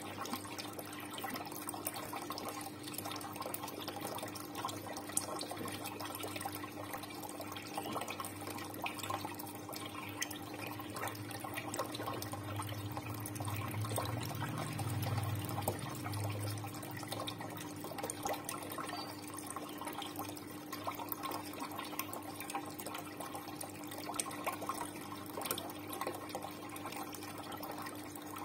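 Water running and trickling into a tiled fish pond, a steady splashing with fine drips, over a steady hum. A low rumble swells for a few seconds midway.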